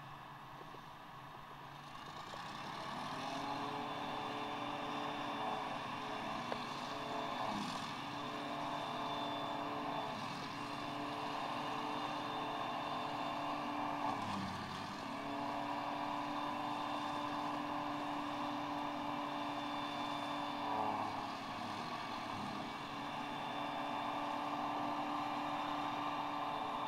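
Claas Jaguar 940 forage harvester running under load while picking up and chopping grass: a steady machine drone with a held whining tone. It swells about two seconds in and dips briefly around the middle before coming back.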